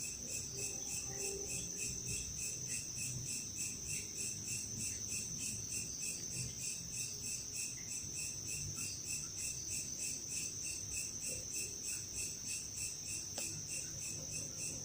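Night insects chirping in a steady, high, pulsing trill, about four pulses a second.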